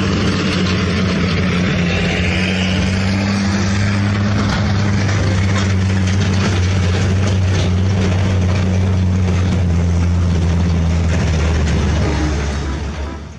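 Large crawler excavator's diesel engine running steadily under load as it digs and swings to load a dump truck, with scattered clanks over the engine. The sound fades out near the end.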